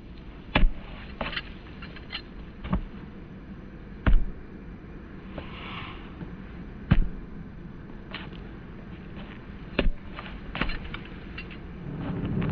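Soccer ball being juggled: sharp thuds as the ball is struck by foot, knee and head, about a dozen at uneven intervals, a few much louder than the rest. A low rumble swells near the end.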